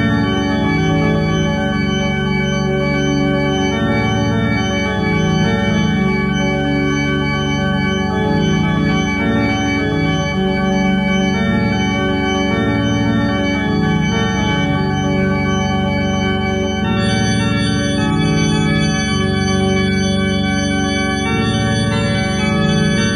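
Music: slow, sustained organ-toned keyboard chords that shift every few seconds, with no drums or vocals. Some higher tones join about seventeen seconds in.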